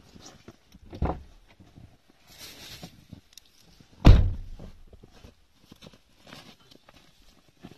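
Two dull thumps, the second about three seconds after the first and much louder, with a short hiss between them.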